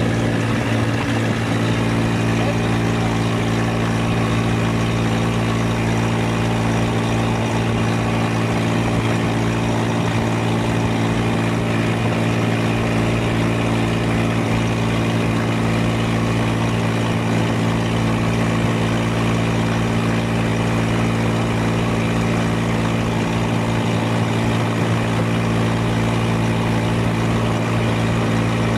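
Hattat 240S tractor's diesel engine running at a steady speed as the tractor drives along the road, heard from the driver's seat; a constant, even drone with no change in revs.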